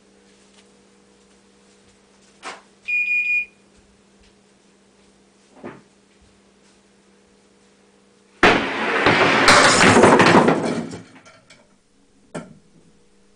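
Candlepins struck by a bowling ball, wooden pins clattering against each other and the pit in a sudden loud burst that dies away over about two and a half seconds in the second half. Before it, a short electronic beep about three seconds in and a couple of faint knocks over a low steady hum.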